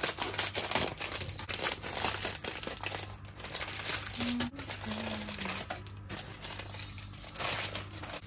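Plastic wrapper crinkling and crumpling as it is handled, in dense rapid crackles.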